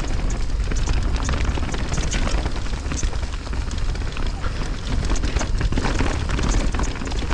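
Mountain bike rattling down a rough dirt trail, with wind buffeting the microphone: a steady rumble with many small knocks and clicks from the bike over the bumps.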